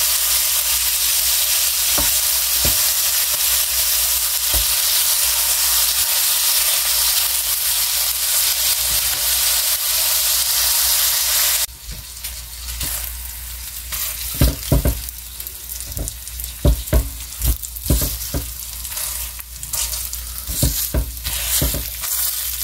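Sausage patties sizzling in an electric skillet, a steady loud sizzle that drops off abruptly about halfway through to a quieter sizzle. In the second half a plastic slotted spatula knocks and scrapes against the pan in a string of sharp clacks as the patties are turned and pushed around.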